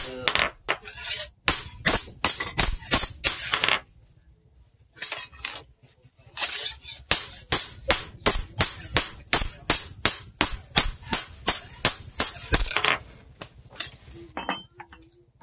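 Hammer striking a steel sword blade on an anvil, about three bright ringing clinks a second. The strikes pause briefly about four seconds in, resume, and stop about thirteen seconds in, followed by a few scattered knocks.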